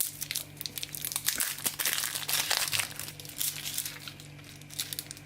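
Plastic wrapper of a dark Kinder chocolate bar crinkling as it is opened, a run of quick crackles over a low steady hum.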